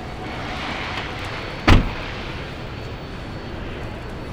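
A pickup truck door slammed shut once, a single heavy thud about two seconds in, over steady background noise.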